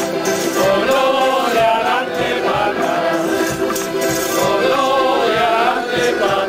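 A folk group playing accordions and guitars while several men sing together. Held accordion notes run under the shifting melody of the voices.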